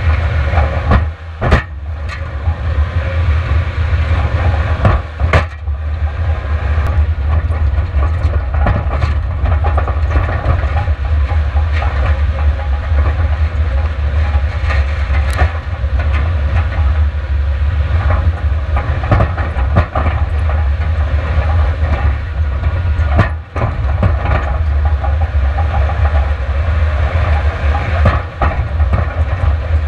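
Subaru Outback driving fast over a dirt race course, heard from a camera mounted outside the car: a steady low rumble of wind and road noise with rattling over the ruts and a few sharp knocks from bumps.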